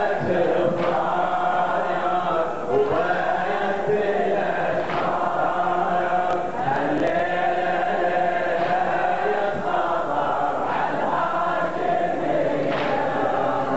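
Large group of men chanting together in long held phrases: a Shia Ashura mourning chant (latmiya) led by a radood.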